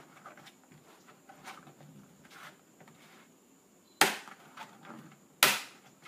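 Plastic retaining tabs of a Dell Inspiron 3531's bottom access panel popping free as the panel is pried up: two sharp snaps about a second and a half apart, near the end, after faint clicks and scratching of fingers working the panel edge.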